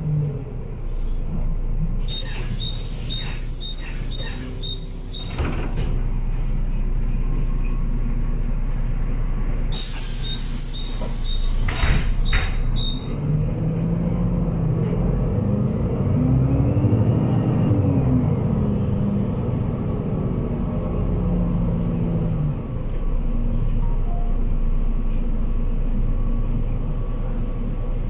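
Cabin sound of an Otokar Kent C-12 diesel city bus under way: a steady engine and road rumble, with an engine note that climbs and then falls again midway. Twice, early on and about ten seconds in, a spell of hissing comes with a quick regular ticking about twice a second, then stops suddenly.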